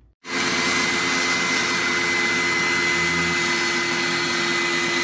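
Benchtop table saw running at full speed, a loud steady motor noise with a high whine, as it cuts a thin Kydex plastic sheet. It starts suddenly just after the start.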